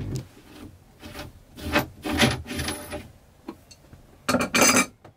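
Scraping and rubbing from hands and tools working on a yacht's cable steering gear, in several short bursts, the loudest near the end.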